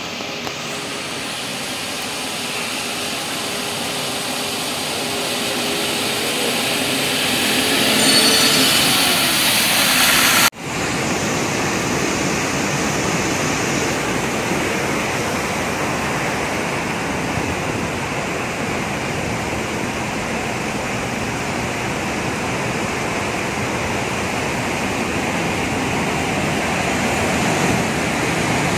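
Rushing of fast-flowing floodwater, rising over the first ten seconds with a steady hum that bends in pitch, then an abrupt cut to another steady rush of water.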